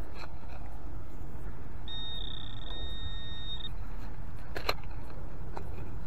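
Garrett ACE 200i metal detector sounding one steady high electronic tone for just under two seconds, about two seconds in, over a steady low rumble. A single sharp click follows near the end.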